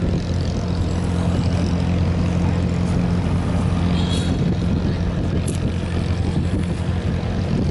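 River cargo boat's diesel engine running with a steady low drone as the steel boat passes close by.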